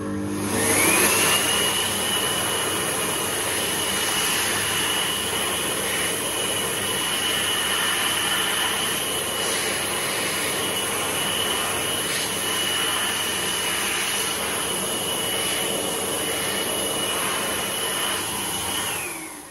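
Boost'R Smart hand dryer switching on under a hand, its motor whine rising to speed within about a second, then blowing steadily: a high, even whine over loud rushing air. Near the end the whine falls away and the air stops.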